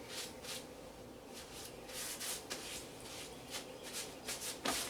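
Faint rustling and light scraping of things being handled by hand, in short irregular strokes, with a slightly louder stroke near the end.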